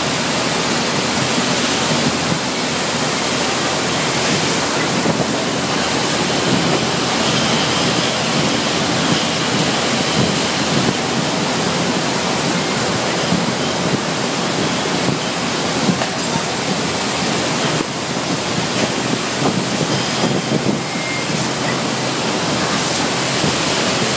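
Steady, loud rushing hiss of a packing plant floor: water spray nozzles showering hot-filled tomato-paste bags in a cooling tunnel, with packing machinery running and faint high whines now and then.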